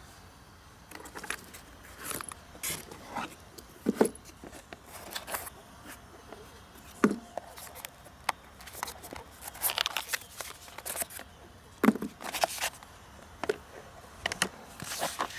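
Handling noise from a plastic hard case and its packing: irregular clicks, scrapes and rustles as foam inserts and card user guides are lifted out, with a few sharper knocks.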